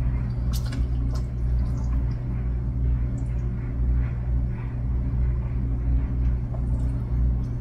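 Light clinks and scrapes of a metal slotted spatula turning chicken in a pot of boiling water, over a steady low hum.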